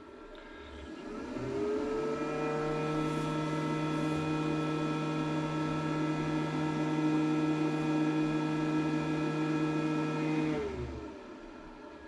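Cooling fan of a SUN GTIL2 2000W grid-tie solar inverter kicking in about a second in and spinning up with a rising whine. It runs at full speed as a steady whir with a low hum, the 'turbo fan' level of about 60 dB, then winds down about a second before the end.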